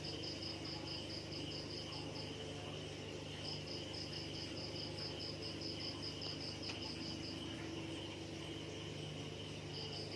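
Insect chirping in quick pulsed trains, about five pulses a second, breaking off about two seconds in and again past the middle before picking up near the end, over a low steady hum.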